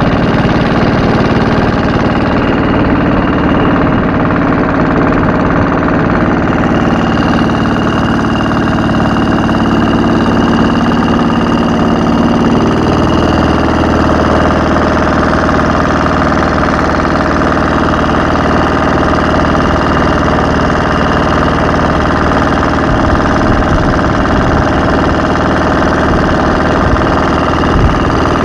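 Wooden fishing boat's engine running steadily as the boat travels under way, its note shifting slightly about halfway through.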